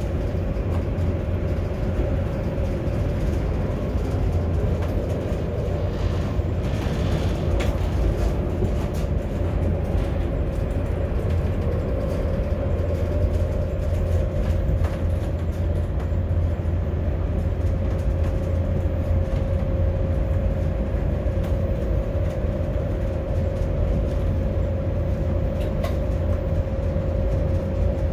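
A train running at speed, heard from inside the driver's cab: a steady low rumble with a constant hum over it.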